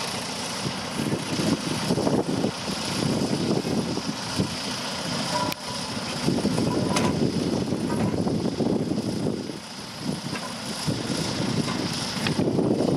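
Fowler BB1 steam ploughing engine running as it drives slowly along a field track, a steady mechanical noise of its engine and gearing.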